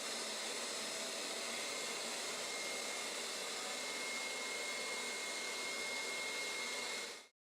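Hoover SteamVac All Terrain carpet cleaner running steadily on carpet: an even suction-motor rush with a thin high whine. It cuts off abruptly near the end.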